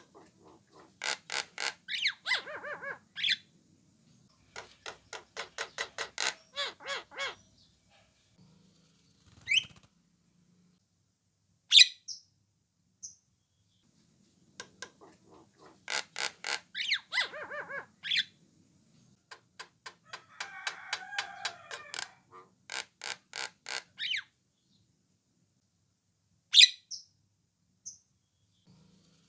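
Javan myna calling: four bouts of rapid, harsh chattering notes, each a few seconds long, with three short, sharp rising whistles in the gaps between them. These are the species' characteristic calls.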